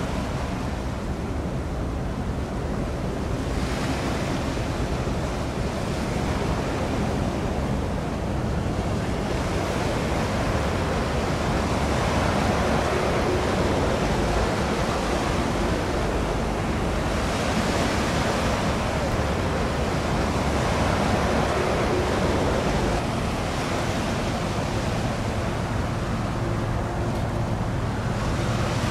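Steady outdoor sea noise: wind buffeting the microphone and water washing. A faint low hum runs underneath and grows slightly near the end.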